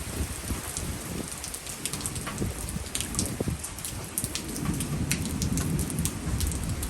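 Steady rain falling during a storm, with many sharp individual drop hits close by over a low rumble.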